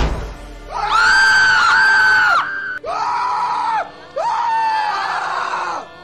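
A sharp bang, then three long, high-pitched screams one after another, the first and longest starting about a second in: a horror sound effect.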